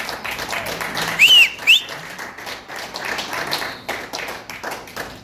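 A small audience applauding and cheering, with two short whistles about a second in. The clapping thins out toward the end.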